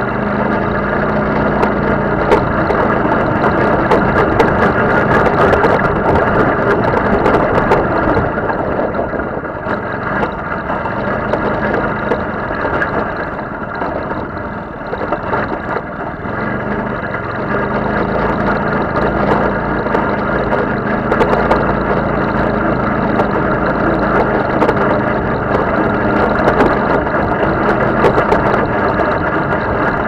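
Off-road buggy engine running under throttle, heard from on board as it drives over rough dirt tracks; the engine note rises and falls with the revs and eases off briefly about halfway through. Frequent clicks and knocks from the bumps ride over the engine.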